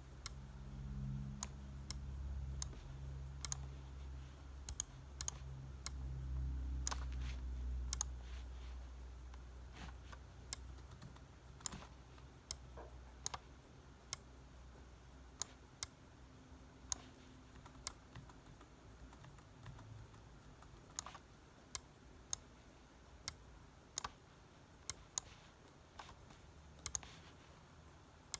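Irregular clicks of a laptop's keys and mouse buttons as a beat is built in music software. A low hum sits under the clicks for the first several seconds, then fades.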